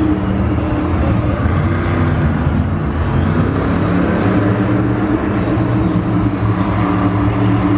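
Monster truck's supercharged V8 engine running with a steady, loud engine note as the truck rolls slowly across the dirt, the revs wavering a little without any big rev-up.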